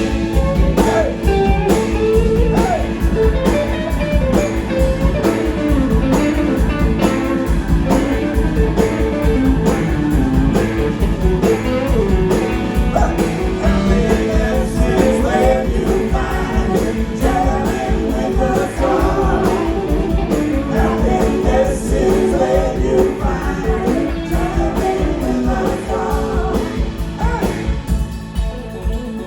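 A live rock band plays with singing, electric guitar and drums keeping a steady beat. The vocal line drops out near the end while the band plays on.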